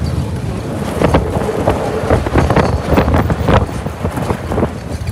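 Truck engine running under load with a steady low rumble while wind buffets the microphone. A run of sharp knocks and rattles comes through the middle.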